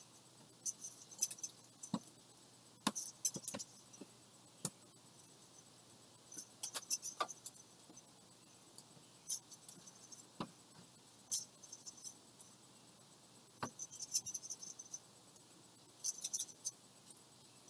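Light, irregular clinks and taps of a glass pipe being handled and cleared out, coming in small clusters every few seconds.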